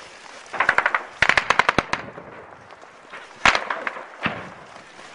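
Automatic gunfire in a firefight: two rapid bursts of shots in the first two seconds, then a single loud shot that rings out about three and a half seconds in and a fainter one just after.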